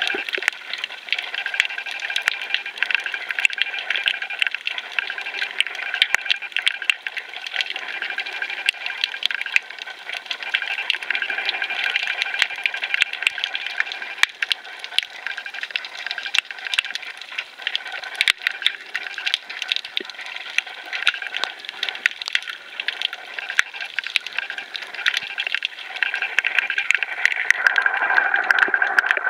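Underwater sound picked up by a camera held below the surface: a steady rush of water thick with fine crackling clicks, growing a little louder near the end.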